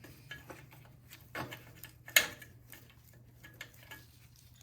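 Light clicks and taps of a small metal hose clamp and hand tool being worked onto a snowblower's rubber fuel line, with one sharp click about two seconds in.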